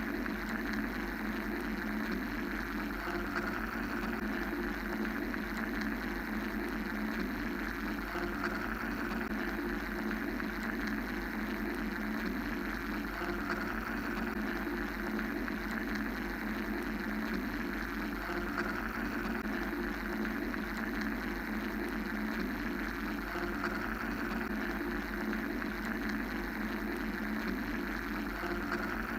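Steady mechanical white-noise drone: a constant low hum under a hiss that swells gently and subsides every several seconds, with no breaks or distinct events.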